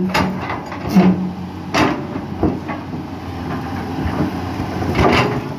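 CAT 320C excavator running on its swapped-in Mercedes 366 six-cylinder diesel, its steel bucket clanking against loose rocks as it lays a stone base. There are sharp knocks just at the start, about a second in, near two seconds and again near five seconds.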